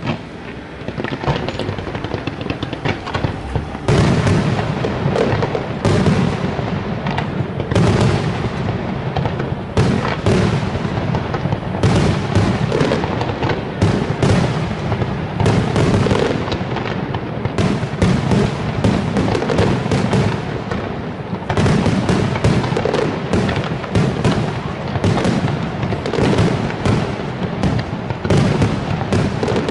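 Fireworks display: a dense, continuous barrage of shell bursts and crackle, growing heavier about four seconds in.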